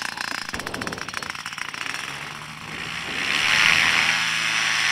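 Paramotor engine and propeller running at full power for a foot-launched takeoff, a steady hum and propeller hiss that swell louder about three seconds in.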